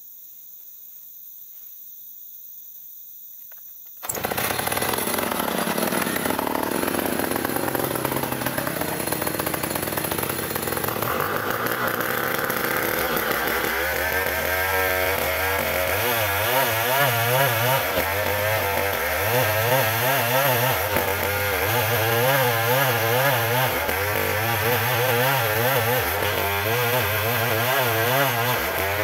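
Insects chirp steadily for the first few seconds. Then a chainsaw comes in suddenly, about four seconds in, and runs at full throttle ripping lengthwise through an ulin (Bornean ironwood) beam, its engine note wavering under the load of the cut.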